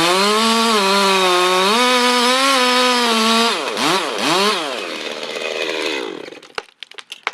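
Stihl chainsaw held at full throttle, cutting, then let off and blipped twice before the engine dies away. A few sharp cracks follow near the end.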